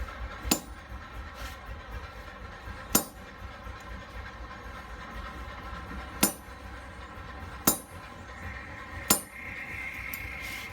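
Five sharp metal-on-metal hammer strikes, one to three seconds apart, over a steady faint hum.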